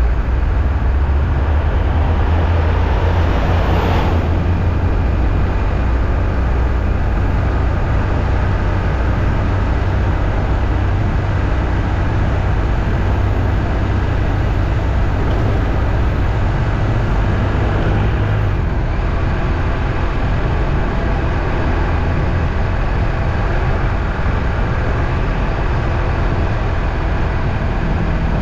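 Steady low rumble of a moving road vehicle, engine and road noise together. There is a brief swish about four seconds in, and the deepest part of the rumble eases a little past the middle.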